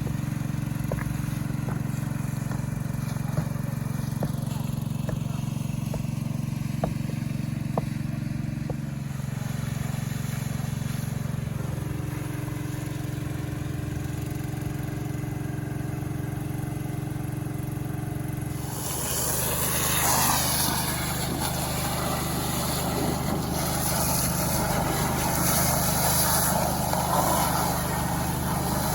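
A Robin small petrol engine runs steadily. About two-thirds of the way through, a loud hissing rush joins it and the engine note drops slightly.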